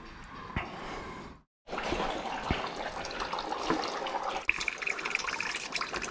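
Engine oil streaming from a car's sump drain into a plastic drain pan: a steady trickling splash, broken by a brief gap of silence about one and a half seconds in.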